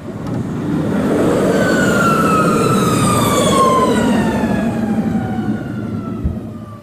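A vehicle passing by: a rising and fading rush of noise with a whine that falls steadily in pitch as it goes past.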